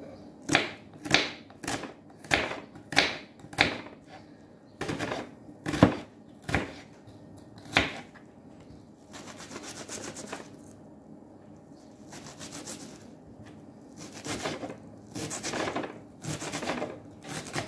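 Serrated kitchen knife chopping an onion on a wooden cutting board: a run of sharp knocks of the blade on the board, roughly two a second, easing for several seconds midway to faint slicing and scraping, then picking up again near the end.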